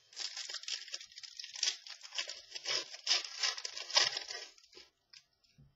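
Football trading cards being handled and slid against each other: a dense, crackly rustle of quick clicks and scrapes that stops about five seconds in.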